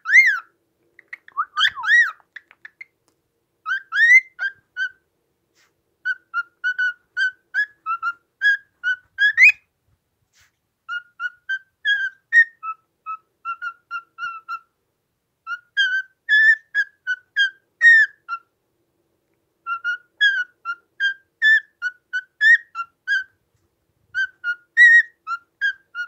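Cockatiel whistling a song of quick chirping notes, about three or four a second, in phrases of a few seconds with short pauses between.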